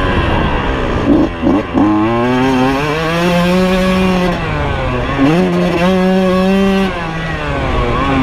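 Kawasaki KX125 single-cylinder two-stroke engine revving under hard acceleration on a motocross track. Its pitch rises and falls with the throttle: it is chopped and blipped briefly about a second in, then held at high revs twice with a drop in between.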